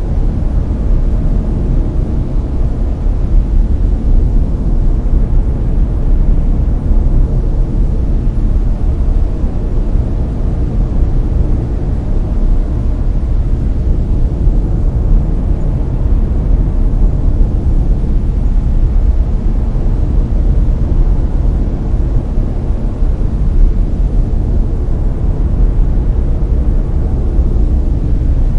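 Steady layered brown noise: a loud, deep, even rush with most of its weight in the bass and little treble.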